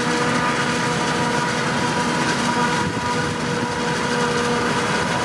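Claas Jaguar forage harvester chopping maize for silage, with a tractor pulling the trailer alongside: a steady machine drone with a few constant humming pitches over the rush of the chopping.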